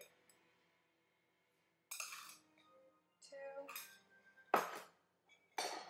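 Near silence for about two seconds, then dishes and a spoon clinking and clattering as they are handled on a kitchen counter, with one sharp clatter about four and a half seconds in.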